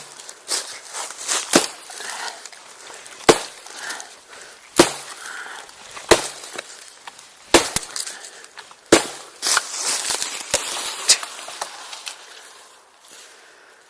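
An axe chopping into wood: sharp single blows about every second and a half, with rustling and crackling between them.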